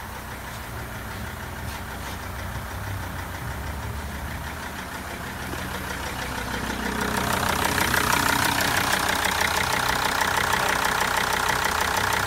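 Mercedes OM612 2.7 CDI five-cylinder diesel idling. It is low and steady at first, then louder with a rapid, even diesel clatter from about seven seconds in.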